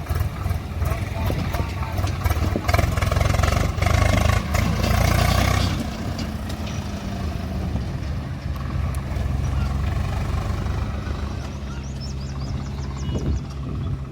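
Heavy farm machine's diesel engine running, louder and busier with a few knocks for about the first six seconds, then settling to a steadier, lower run.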